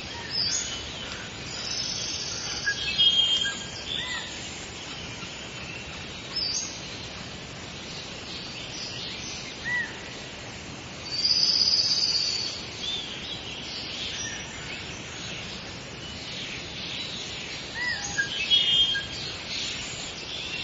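Tropical rainforest ambience: assorted birds calling and chirping at intervals over a steady background hiss, with one louder high call about halfway through.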